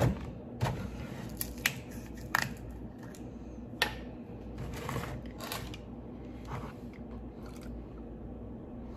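Scattered sharp clicks and taps of kitchen things being handled, a plastic milk jug among them, as milk is got ready for measuring; the taps thin out near the end.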